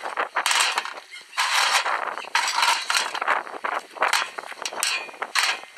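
Metal parts of a cast-iron bench vise scraping and clattering in irregular bursts as the vise is taken apart.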